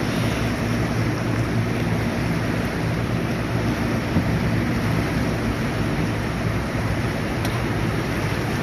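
Boat motor running steadily under the rush of churning river water, with wind buffeting the microphone.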